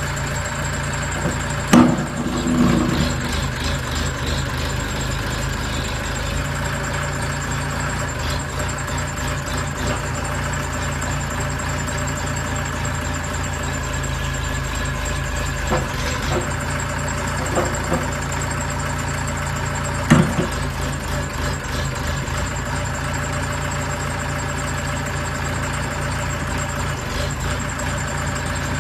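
Engine of a WZ45-16 mini backhoe loader running steadily, with a few short sharp knocks, the loudest about two seconds in and again about twenty seconds in.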